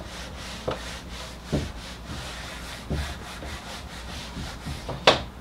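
Whiteboard eraser wiping across a whiteboard in quick back-and-forth strokes, with a few short knocks in between, the loudest about five seconds in.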